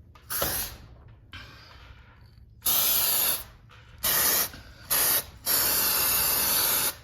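Aerosol can of white lithium grease spraying in a series of short hissing bursts, about five loud ones and a fainter one, the last the longest, as the garage door spring is lubricated.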